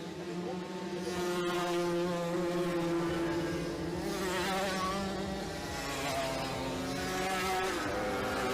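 Several small two-stroke moped engines buzzing at high revs, their pitch rising and falling as they accelerate and pass.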